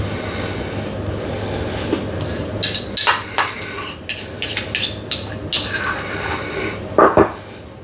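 A metal utensil clinking against a dish, about a dozen quick, ringing clinks over some three seconds, then a duller knock about seven seconds in.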